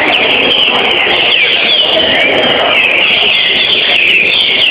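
Several caged green-winged saltators (trinca-ferro) singing at once: many short whistled phrases sliding up and down in pitch, overlapping one another without a break, over a steady background din.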